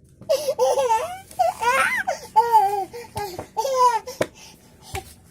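A young child laughing in a string of high-pitched peals with short breaths between them, followed by a couple of sharp little knocks near the end.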